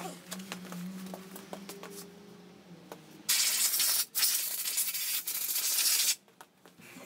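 Faint clicks over a low steady hum, then, about three seconds in, a loud hiss of pressurised gas from a spray nozzle that breaks off briefly once and stops about three seconds later.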